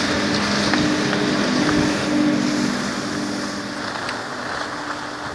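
Skis sliding over packed snow on a groomed piste, with wind rushing over the microphone. A low steady hum is strongest in the first half and fades.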